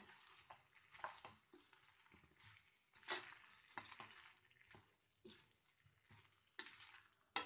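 Wooden spatula stirring a thick cauliflower and potato curry in a nonstick pan: faint, irregular scraping and squelching strokes.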